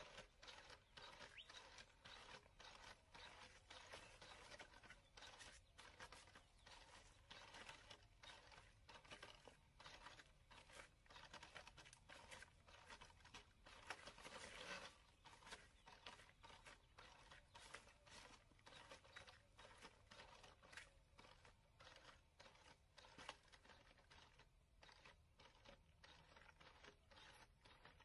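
Faint crunching and scraping of a four-legged robot's feet stepping over loose rocks and gravel, a quick, uneven series of footfalls.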